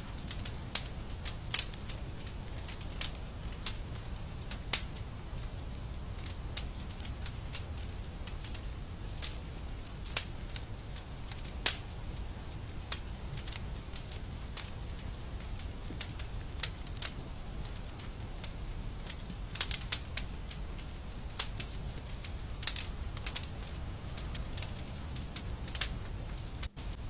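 Wood fire crackling in a fireplace: irregular sharp pops and snaps over a steady low rumble of the flames. The sound drops out for a split second near the end.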